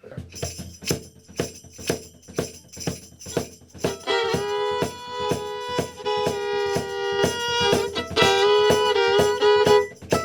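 Music: a jingling percussion beat of about two strikes a second, joined about four seconds in by a fiddle playing a tune in long held notes.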